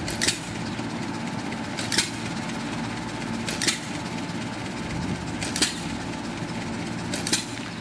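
A steady engine-like hum of a running motor, with a short hiss recurring regularly about every second and three quarters.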